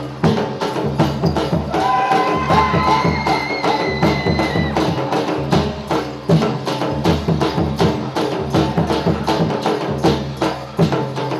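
Gujarati folk dance music driven by fast, even percussion with sharp clicking strokes, and a brief high melodic phrase about two seconds in.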